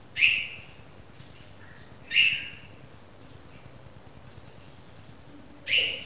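Red-vented bulbul fledgling calling: three short, sharp calls, the first two about two seconds apart and the third near the end, with a few faint softer notes between them.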